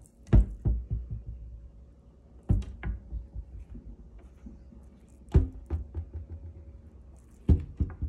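Kitchen cabinet doors being opened and shut by hand, each shutting with a sharp knock followed by a few lighter knocks. Four such knocks come about two to three seconds apart.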